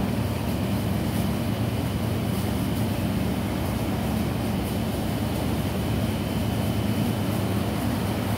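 Steady low mechanical drone with a faint, thin high whine above it, even in level throughout.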